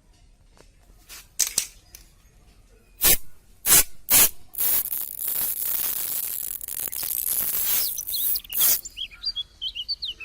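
A spray pump spraying water: several short spurts, then a steady spray for about three seconds, then two more quick spurts. Birds chirp near the end.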